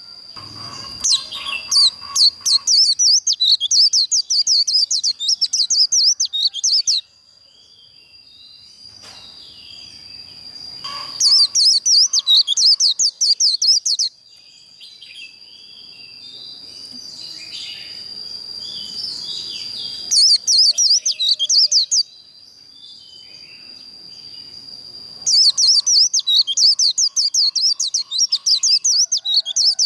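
White-eye singing its rapid, high twittering 'líu' song in four long bursts of a few seconds each, with quieter chirps between them. A thin steady high tone runs underneath.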